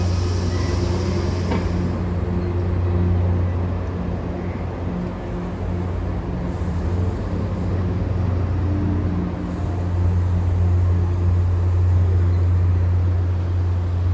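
Diesel locomotive engine running with a steady, loud low drone.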